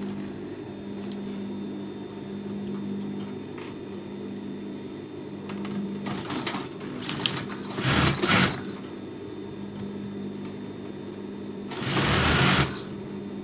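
Industrial sewing machine running steadily as it stitches a seam, with a few short rustling noises of fabric being handled; the loudest comes near the end.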